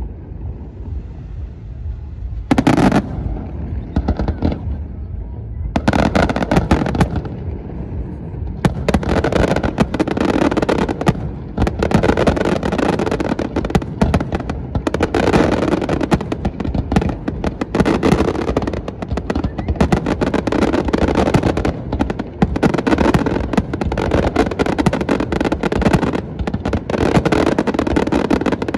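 Aerial fireworks display: shells bursting with loud bangs and crackling. It starts sparse, with one loud bang about two and a half seconds in, then builds into a rapid, near-continuous barrage.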